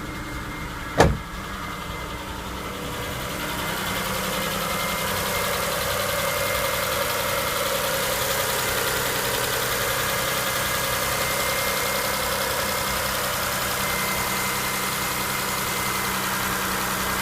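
Mitsubishi 6B31 3.0 V6 engine idling steadily on its first run after new hydraulic lifters were fitted, growing louder a few seconds in. A single sharp knock comes about a second in.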